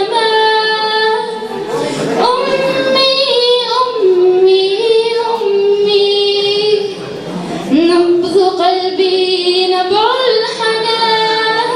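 A teenage girl singing solo into a microphone, holding long notes that step up and down in pitch, with short breaths between phrases.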